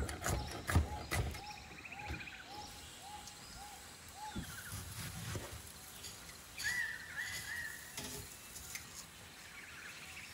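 A kitchen knife cutting through fruit and vegetables onto a wooden chopping board, with a few sharp knocks in the first second and softer cuts later. Behind it a bird repeats a short call about three times a second until about four seconds in, and brief higher chirps follow later.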